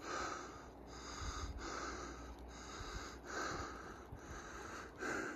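A hiker panting heavily and steadily, out of breath from a steep uphill climb, each breath a swell of hiss close to the microphone.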